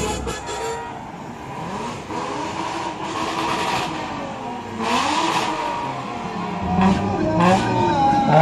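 Cars driving slowly past one after another, their engines running; about five seconds in one engine's pitch dips and then climbs as it accelerates.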